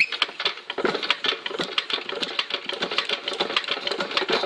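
Chaise Véga stationary engine turned over by hand during a compression test, its mechanism giving a rapid, irregular clicking and clattering.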